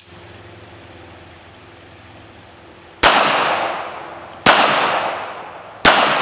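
Three shots from a Ruger LCP .380 Auto pocket pistol, about a second and a half apart. Each is a sharp crack that rings out over about a second.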